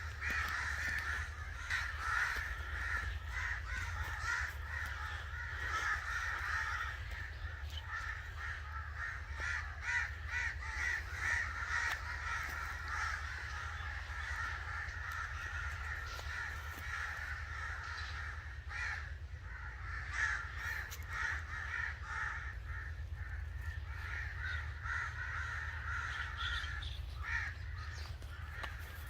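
Several crows cawing continuously, their harsh calls overlapping thickly, over a steady low hum.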